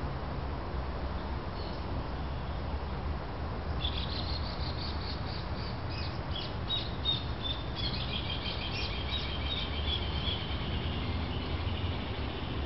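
A small bird twittering in quick runs of short, high chirps from about four seconds in, over a steady low background hum.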